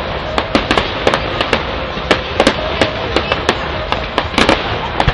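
Fireworks display going off: a rapid, irregular string of sharp bangs and cracks over a steady noisy background.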